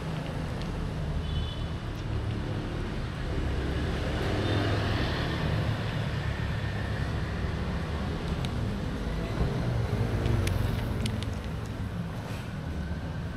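Steady low rumble of street traffic, with a few sharp clicks about ten seconds in from a spoon tapping food onto a plastic plate.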